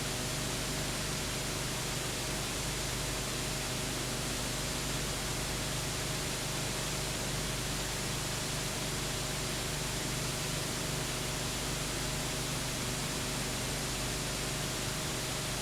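Steady hiss with a faint low electrical hum and no other sound: the noise of an empty soundtrack.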